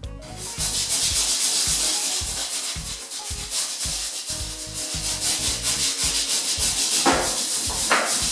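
A hand rubbing over the wet fiberglass shower pan and its vinegar-soaked paper towels: a steady scratchy rubbing in back-and-forth strokes, about two to three a second.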